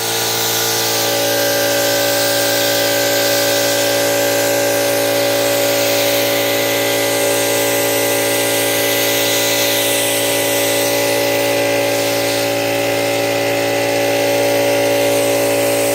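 Air compressor motor running steadily with a hum, under the hiss of compressed air from an HVLP touch-up spray gun spraying paint.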